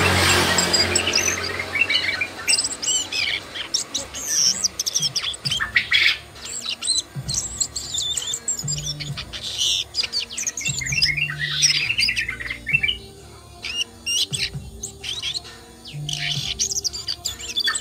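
Asian brown flycatcher singing: a rapid, varied run of high chirps and short trills with brief pauses.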